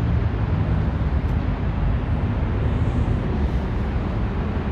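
Road traffic on a city street: a steady, even rumble of passing cars.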